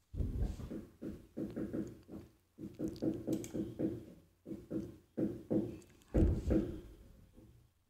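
A faint, muffled person's voice in the background, in short syllable-like bursts whose words are not made out.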